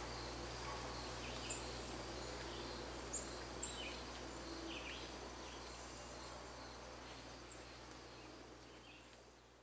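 Outdoor ambience: a steady low background hum with scattered short bird chirps, fading out gradually toward the end.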